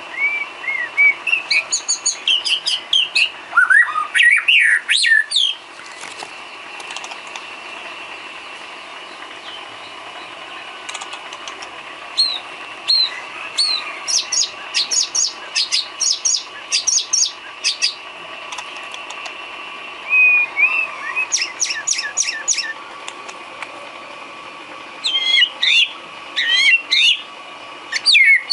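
White-rumped shama (murai batu) singing in phrases of rapid sweeping whistles and chirping notes, with pauses of several seconds between phrases, over a faint steady high hum.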